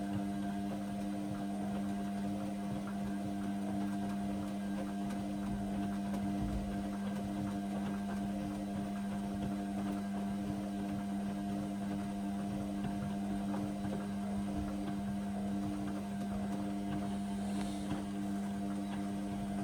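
Indesit washing machine running in the main wash of a cotton 40 programme, giving a steady machine hum held at one pitch.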